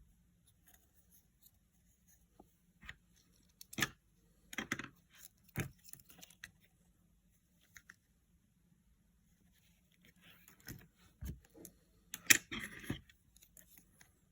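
Scattered clicks, taps and short rustles of small objects being handled, in two clusters, with the sharpest click about twelve seconds in. Under them runs a faint steady low hum.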